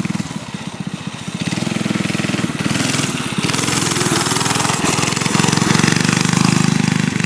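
Mini bike engine running hard under open throttle while the rider holds a wheelie. It gets louder about a second and a half in and is loudest near the end.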